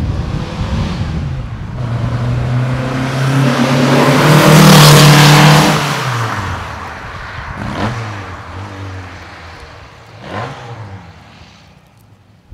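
1966 VW Beetle with a 2275 cc air-cooled flat-four and a Merge Comp header exhaust, accelerating past, loudest about five seconds in, then pulling away and fading. There are two short breaks in the exhaust note as it drives off.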